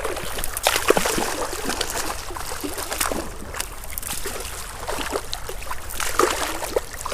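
Creek water running, broken by irregular splashes, strongest about a second in, around three seconds and near the end, as a freshly hooked brown trout is played.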